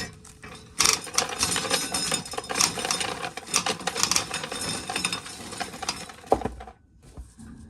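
Corn sheller running, with shelled kernels clattering into a bucket. The clatter starts about a second in and stops about a second before the end.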